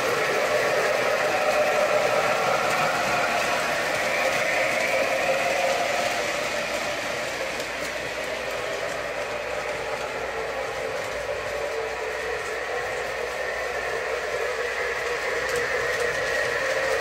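O-gauge model trains running on the three-rail track, a steady rolling whir with motor hum. It softens about halfway through and grows louder again near the end.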